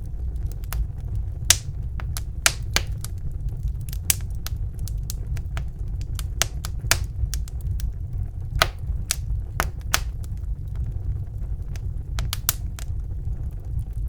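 Wood fire crackling in a fireplace: irregular sharp pops and snaps, some louder than others, over a steady low rumble.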